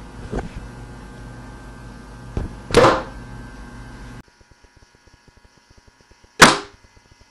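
A compound bow being shot: a sharp, loud snap of the string and arrow release about three seconds in. Then, through the bow-mounted Riser Cam's own microphone, another shot sounds near the end, the loudest moment, over a faint, rapid, even ticking.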